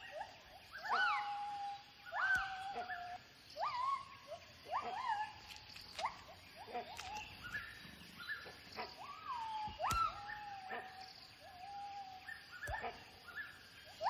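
White-handed gibbons calling: a run of whooping hoots, each sweeping up in pitch and often dropping back, roughly one a second, with some longer level notes between.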